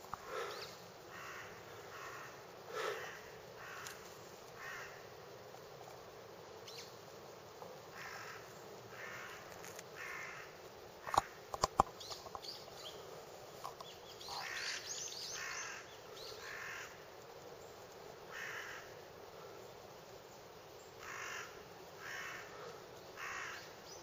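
Crows cawing, short calls repeated in runs of two to four. A few sharp clicks, the loudest sounds here, come about halfway through.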